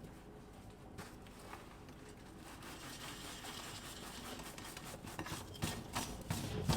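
Rubbing and scraping of a large sheet being pushed along wooden ceiling framing with a push pole, with scattered knocks that grow louder near the end.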